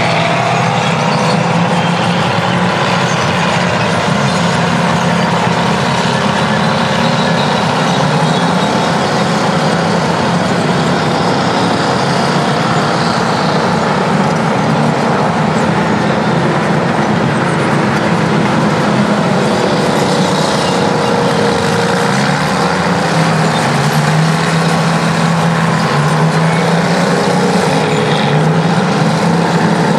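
Detroit Diesel two-stroke engines of Terex earthmoving machines (bulldozers and scrapers) running under load, loud and continuous, with the engine note rising and falling as the machines work.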